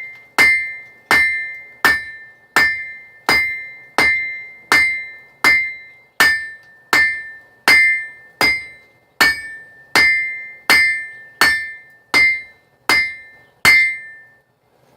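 Blacksmith's hammer striking hot knife steel on an anvil at an even pace, about three blows every two seconds. Each blow rings out clearly, and the hammering stops shortly before the end.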